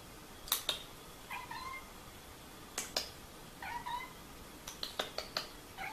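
A cat giving short, quiet meows: two in the middle and a third starting right at the end, with a few sharp clicks in between.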